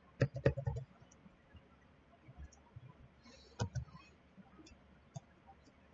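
Computer keyboard keystrokes: a quick run of key presses at the start, a few more a little past the middle, then single scattered taps.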